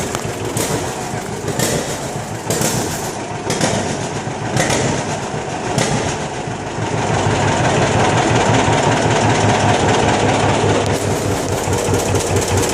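John Deere 60's two-cylinder engine running with its pulsing, uneven beat, growing louder from about seven seconds in.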